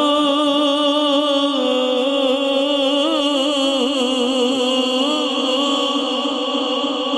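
A man's voice singing a Punjabi naat, amplified through a handheld microphone. He holds one long note, steady at first and then wavering in ornaments from about two seconds in.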